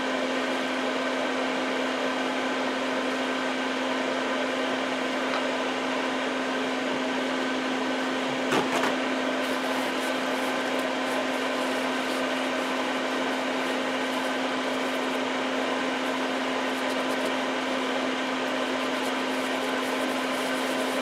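Steady hum of a small electric motor running, with one constant low tone that never changes; a brief click about eight and a half seconds in.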